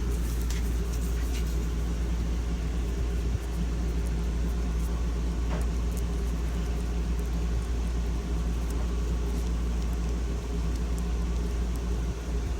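Steady low electrical hum, typical of the synchronous motor of a Hammond electric mantel clock, with a few faint clicks.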